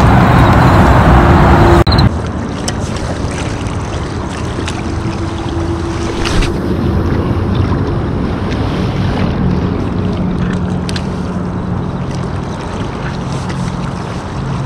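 Loud rushing wind and water noise on the microphone that cuts off abruptly about two seconds in, giving way to quieter lapping water along a rocky shore with the low, steady hum of a distant boat motor and a few faint clicks.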